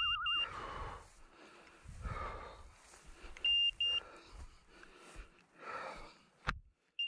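Electronic beeper collar on a hunting dog giving a double high-pitched beep about every three and a half seconds, three times. Between the beeps, tall dry grass swishes as the walker pushes through it, and there is one sharp click near the end.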